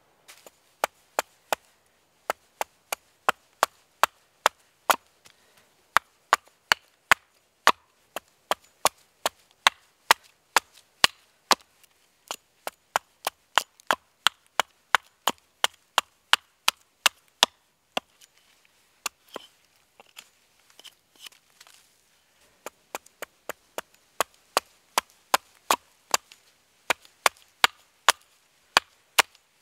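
Axe blade chopping into a stick held upright on a wooden chopping block, quick repeated strikes at about two a second that shave chips off the wood. There is a short lull about two-thirds of the way through, then a run of lighter strokes before the strikes pick up again.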